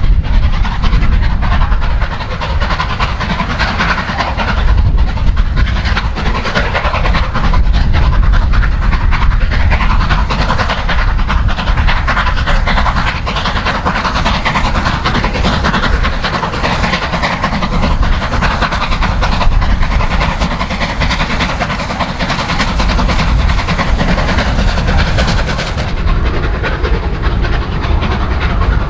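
Southern Railway Merchant Navy class Pacific 35018, a three-cylinder steam locomotive, running with its train of eleven coaches, loud and continuous.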